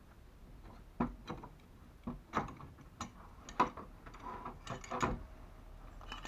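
Irregular sharp metallic clicks and knocks, some ringing briefly, from tools and metal parts of a PA 250/500 mini electric hoist's motor being handled during disassembly.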